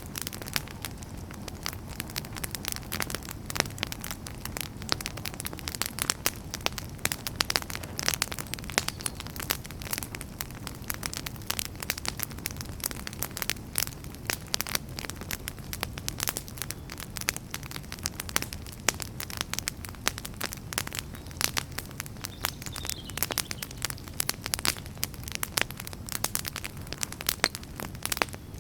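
Wood fire burning in a fireplace, logs crackling and popping in a rapid irregular stream over a steady low rumble of the flames.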